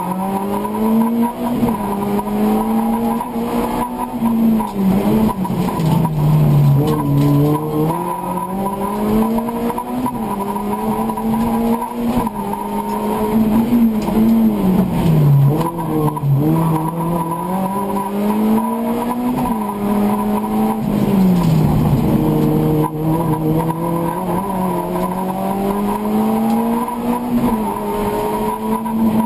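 A race car's engine heard from inside the cabin, driven hard. The revs climb and drop back again and again as it accelerates, shifts and slows for the turns.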